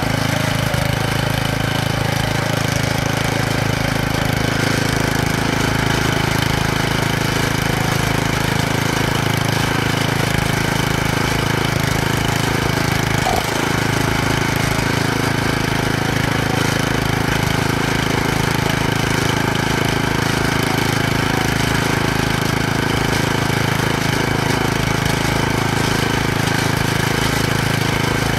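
Planet Jr tractor's engine running steadily while the tractor cultivates a crop row.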